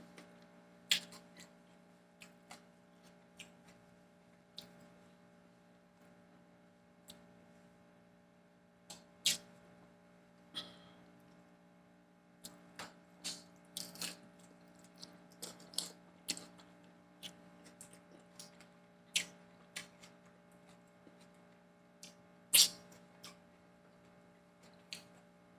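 Close-up eating sounds: scattered crunches, smacks and mouth clicks of someone chewing lettuce-wrapped tacos, over a faint steady hum.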